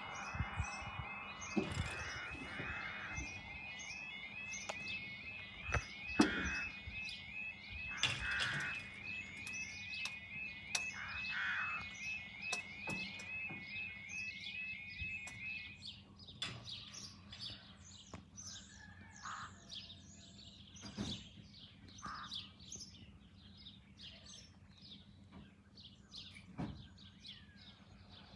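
A level crossing warning alarm sounds as a fast, even warbling tone and cuts off a little past halfway. Small birds chirp throughout, with a few dull knocks.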